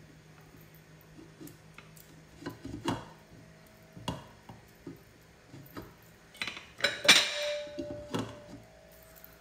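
Glass pot lid knocking and clinking against the rim of a steel cooking pot as it is pressed and shifted while its edge is sealed with wheat dough. There are scattered knocks, a louder cluster about seven seconds in, and a brief ringing tone after it.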